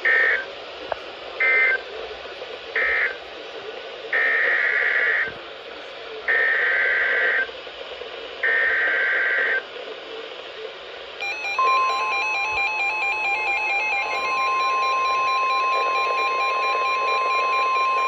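NOAA Weather Radio emergency alert data and alarm tones over radio receiver hiss. First come three short warbling data bursts, the end-of-message code closing a special marine warning. Then come three longer data bursts, the header for a new severe thunderstorm warning. From about two-thirds of the way in, the long steady warning alarm tone sounds.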